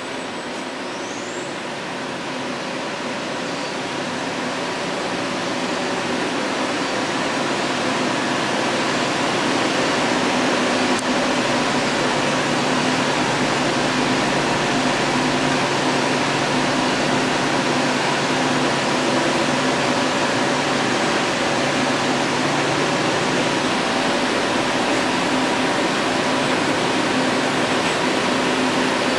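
Tsugami VA-II high-speed CNC machining center running, a steady whir with a hiss and several held tones that grows louder over the first ten seconds or so, then holds level.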